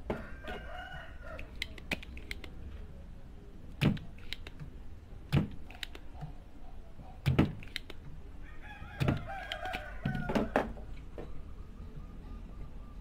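Spring-loaded desoldering pump snapping as it sucks molten solder from circuit-board joints: five sharp clicks about every one and a half to two seconds. Two long, wavering animal calls sound in the background, one at the start and one about two-thirds of the way through.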